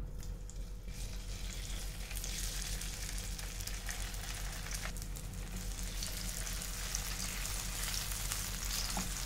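Masala-stuffed okra sizzling in hot oil in a frying pan as the pieces are laid in with a spatula. The sizzle builds over the first two seconds as more pieces go in, then holds steady, with a couple of light spatula clicks near the end.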